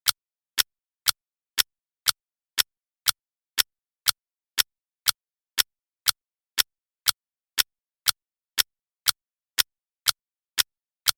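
Clock ticking: short, sharp ticks, evenly spaced at about two a second, with silence between them.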